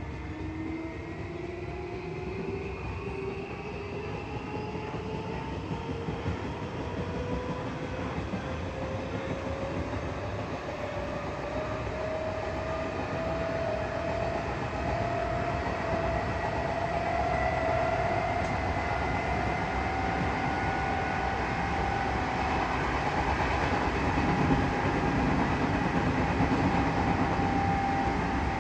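Odakyu 8000 series field-chopper-control train heard from inside a passenger car while accelerating: its traction motors whine in several tones that climb steadily in pitch and level off near the end, over the steady running noise of wheels on rail, growing louder as it gathers speed.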